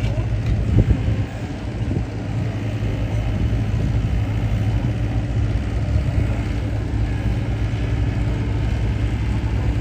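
An engine running steadily with a low hum, with a short knock about a second in.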